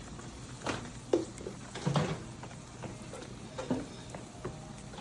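A few scattered, short light knocks and clinks of kitchen utensils and cookware, about five in all.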